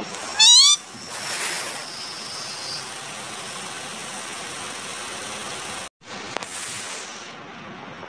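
Indian ringneck parrot gives one short, loud, wavering call about half a second in, followed by a steady background hiss that drops out briefly near six seconds.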